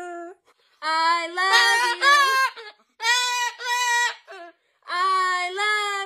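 A woman and a white cockatoo singing together without words, in several long held phrases with short breaks between them.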